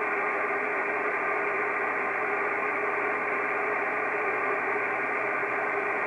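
Kenwood TS-680S transceiver receiving on the 50 MHz band with no station coming through: a steady hiss of band noise, cut off sharply in the upper treble, with a few faint steady tones in it.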